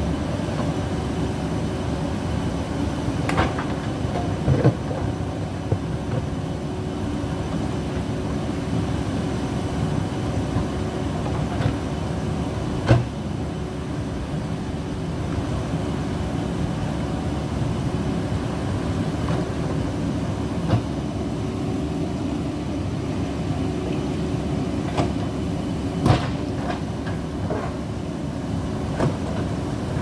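JCB backhoe loader's diesel engine running steadily under load while the backhoe arm and bucket work loose earth. A few sharp metallic clanks stand out above the drone, the loudest about halfway and again near the end.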